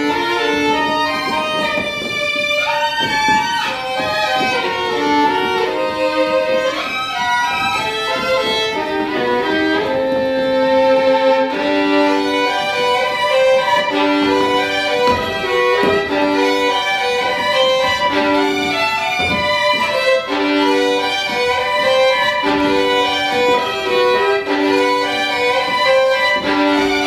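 Solo violin playing live, quick shifting passages at first, then from about twelve seconds in a repeated short figure of two notes sounded together, coming back about every two seconds.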